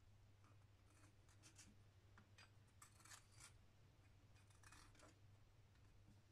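Near silence with faint scratching of a ballpoint pen marking a wooden hatchet handle, in a few short groups of strokes, over a low steady hum.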